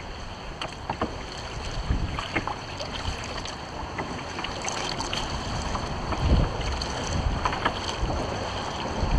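Wind buffeting the microphone over water lapping against a kayak hull, with low gusts, the strongest about six seconds in, and scattered light clicks and taps.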